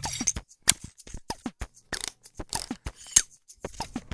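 Animated intro sound effects: a quick run of sharp clicks and short pops, about five a second, some with a quick drop in pitch.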